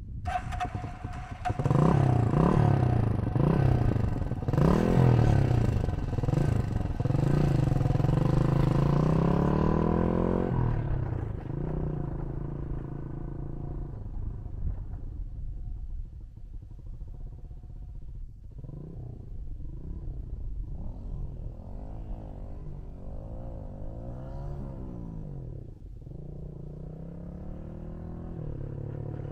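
Small motorcycle engine revving up and down unevenly, the uneven throttle of a first-time rider learning the clutch and throttle. It is loudest over the first ten seconds or so, then runs quieter with smaller rises and falls in pitch.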